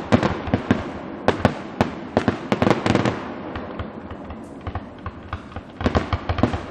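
Fireworks going off in quick succession: a rapid string of bangs and crackles that eases off for a second or two in the middle, then thickens again near the end.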